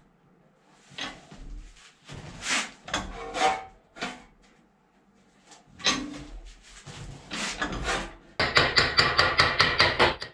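Sheet steel plate being bent by hand in a vise, with irregular scraping and clanking of metal, then a fast run of hammer blows on the steel sheet, about six a second and the loudest part, from about eight seconds in as the bend is hammered over on a steel block.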